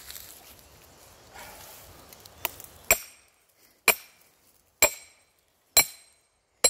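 Sledgehammer striking a steel splitting wedge driven into a log: a light tap, then five hard metallic clanks about a second apart, each with a short ring, as the wedge opens a crack in the wood.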